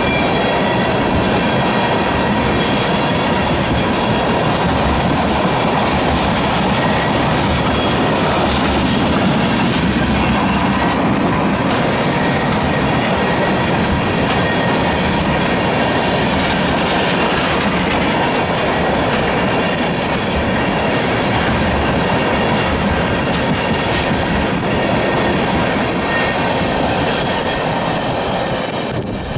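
Freight train of empty ethanol tank cars rolling past at speed, with the steady clatter of steel wheels on the rails and a faint squeal of wheels.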